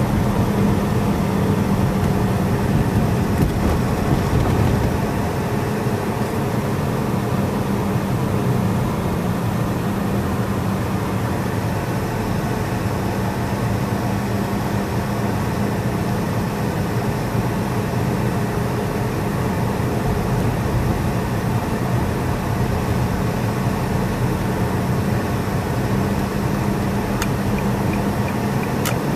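A car driving at steady speed, heard from inside the cabin: a low engine hum under steady road and tyre noise.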